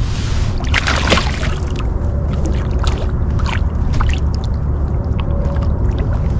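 Steady wind rumble on the microphone with water splashing and lapping around a kayak, plus scattered small clicks and knocks, a short flurry of them about a second in.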